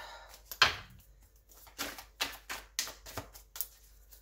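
Tarot deck shuffled by hand: a run of light, irregular card slaps and rustles, with one sharper slap under a second in.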